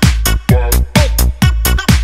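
Electronic dance music with a steady four-on-the-floor kick drum, about two beats a second, over a heavy bassline.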